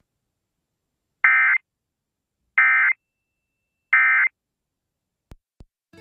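Emergency Alert System end-of-message (EOM) signal: three short bursts of buzzy SAME digital data tones about a second apart, closing the required monthly test. Two faint clicks near the end.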